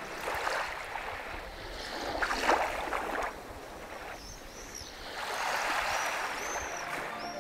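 Small waves washing onto a sandy beach, in three surges of wash, the last the longest. A few short high chirps come in the second half.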